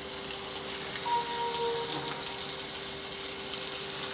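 Pieces of masala-coated surmai (king fish) sizzling and crackling in hot oil in a frying pan as more pieces are laid in one by one.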